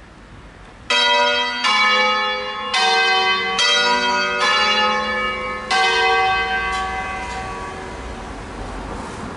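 Crespi bronze church bells (cast 1885, a ring of six tuned in D-flat) ringing a funeral concerto. After about a second of quiet, about five strikes on different bells follow one another within five seconds, each ringing on over the next. The tones then fade away.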